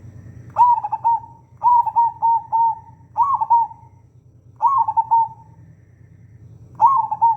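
Zebra dove (perkutut) cooing: five phrases, each a quick run of short staccato notes at nearly one pitch, about a second or so apart, in the hoarse yet melodious (serak-serak merdu) voice.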